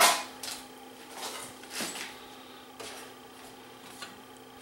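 Handling clatter as the VCR's metal bottom cover is picked up and fitted to the plastic chassis: a sharp click at the start, then a few softer scattered clacks and rattles. A faint steady hum runs underneath.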